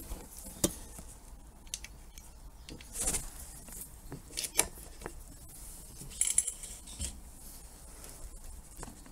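Scattered light clicks, knocks and rustles of an air rifle being handled and shifted on its bipod across a bench, with a few sharper metallic taps among them.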